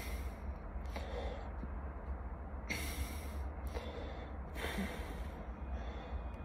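A man breathing heavily through his mouth, out of breath from exertion: about five loud breaths a second or so apart, over a steady low rumble.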